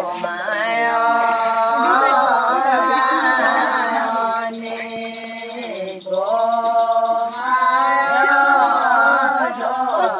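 Women's voices singing a slow, chant-like folk song together, in two long drawn-out phrases with a short break about halfway.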